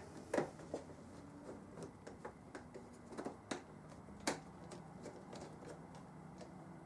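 Scattered, irregular light clicks and ticks, about a dozen, a few with a quick falling pitch, over a faint steady low hum.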